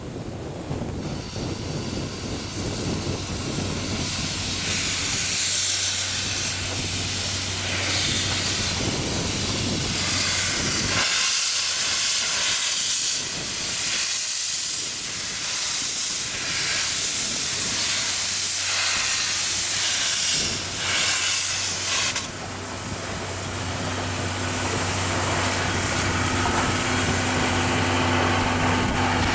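Double-headed steam locomotives C61 20 and C57 180 starting a train, hissing steam from the open cylinder drain cocks and chuffing as they pull away. The sound grows louder over the first several seconds as the engines come past close by.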